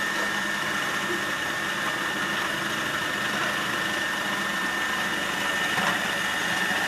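Magimix Cook Expert food processor motor running at steady speed with its slicing disc, giving a steady high whine over a whirring hum, as pieces of courgette and pepper dropped into the feed tube are sliced.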